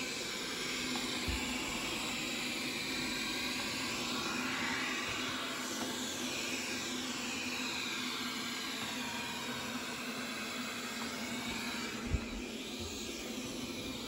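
WYZE LIDAR robot vacuum running on carpet at standard suction: a steady whir with a low hum and high whining tones that slide up and down in pitch. A single thump about twelve seconds in.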